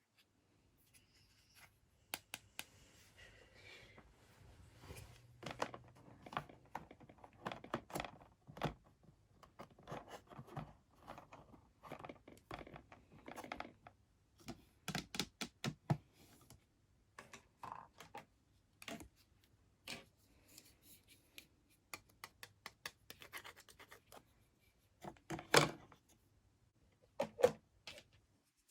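Small toy kitchen pieces and their packaging being handled: irregular clicks, taps and scratching, some in quick clusters.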